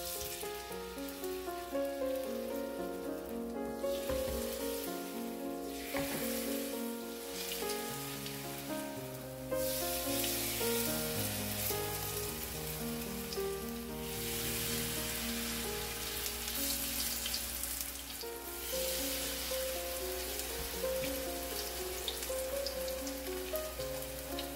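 Zucchini and surimi fritters frying in shallow oil in a pan: a steady sizzle that grows louder from about ten seconds in, over background music.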